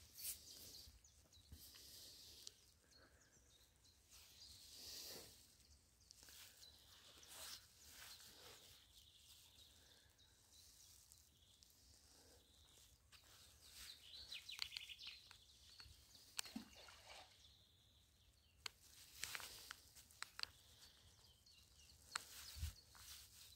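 Near silence: faint outdoor ambience with a few scattered small clicks.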